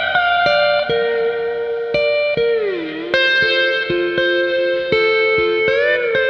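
Slide guitar music: plucked notes ringing with smooth pitch glides, a long downward slide about halfway through and an upward-then-down bend near the end.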